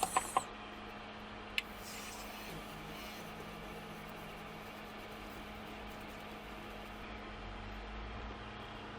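Steady electrical hum and hiss, with a few light clicks at the start and one more about one and a half seconds in.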